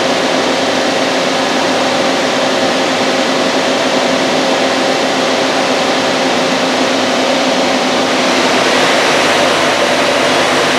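Daewoo Puma 240 CNC turning center running with its spindle and 3-jaw hydraulic chuck at about 3,000 rpm: a steady whir with several steady hum tones underneath.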